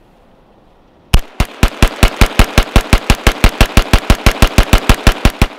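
B&T GHM9 9mm pistol fired semi-automatically in a fast, steady string of shots, roughly seven a second. The string starts about a second in and stops shortly before the end.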